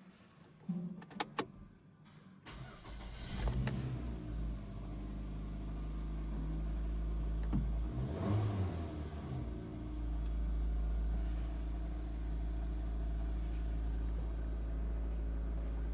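Mazda Demio DE3FS four-cylinder petrol engine: a couple of clicks, then it cranks and starts about three seconds in, revs up and back down once around eight seconds, and settles to a steady idle. The engine has an abnormal noise that the owner puts down to a failing alternator overrunning clutch pulley.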